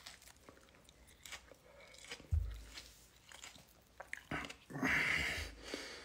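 A man chewing a habanero chili with his mouth closed: soft, scattered clicks of chewing, a low thump a little over two seconds in, and a short hissing rush of noise near the end.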